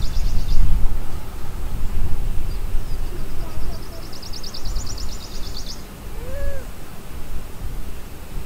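Outdoor ambience on open water: a low, uneven rumble under a high, rapid trill that sounds twice, each lasting a few seconds, and a short rising-and-falling call about six and a half seconds in.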